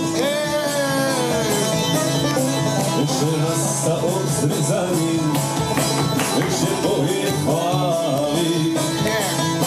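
Country music played by a band: a man singing at the microphone over guitar and a steady bass.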